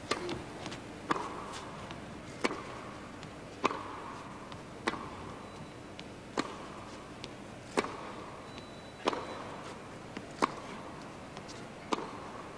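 Tennis rally: a serve, then the ball struck back and forth with rackets, about ten sharp hits roughly every second and a quarter, with softer ball bounces between them.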